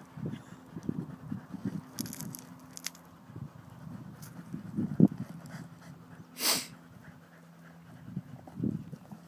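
A dog snuffling and sniffing with its snout down a rabbit hole, in short irregular puffs, with one louder hissing blow about six and a half seconds in.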